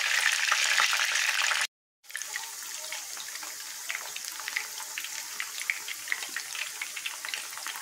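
Mutton mince kebabs frying in hot oil in a pan: a steady sizzle with scattered crackles and pops. The sizzle cuts out for a moment about two seconds in, then comes back quieter.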